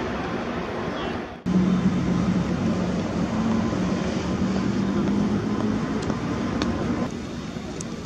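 Outdoor city background noise, steady and fairly loud. It breaks off suddenly about a second and a half in, then goes on with a steady low hum under it.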